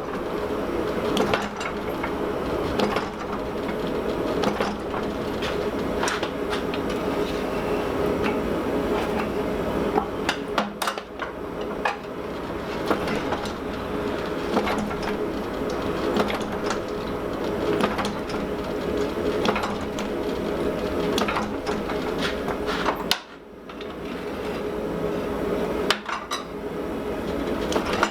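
Metal-on-metal forging strikes at a steady pace of about one every second and a half, over a constant droning hum: hot 4140 steel being set down to form a centre boss, the piece turned a little between blows.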